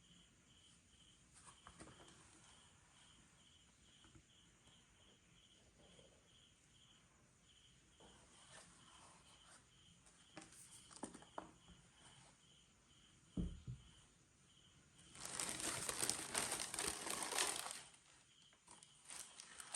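Packaging being handled: soft rustles and light taps, a dull thump about two-thirds of the way in, then about three seconds of loud crinkling near the end.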